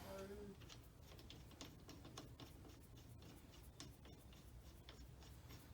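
Near silence with faint, irregular light metal clicks as a crankshaft bolt is threaded back in by hand.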